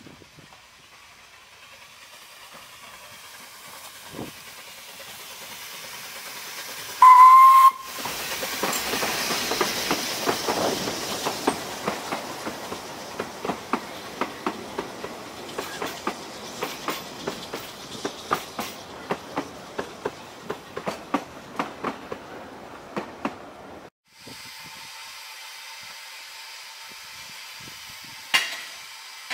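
Narrow-gauge steam train approaching and growing louder. It gives one short whistle about seven seconds in, then its carriages run past with regular clicks of the wheels over rail joints. After a cut, a small steam locomotive hisses steadily, with one sharp knock near the end.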